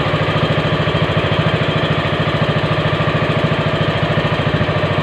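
Small boat's inboard engine running steadily, with a fast, even firing beat.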